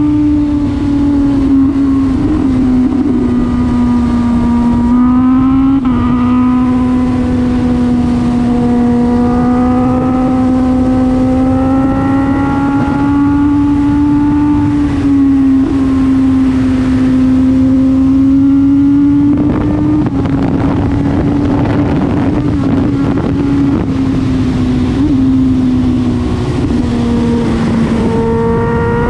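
Honda CB1000R's inline-four engine heard onboard while riding at fairly steady revs, its note drifting gently up and down and stepping a few times, with wind rumble on the camera microphone.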